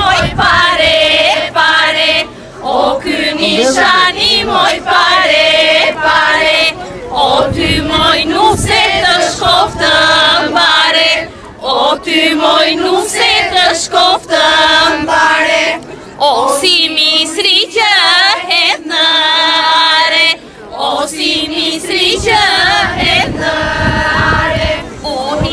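A group of voices singing an Albanian folk song in phrases of one to two seconds, with short breaks between them. The melody lines waver and are ornamented.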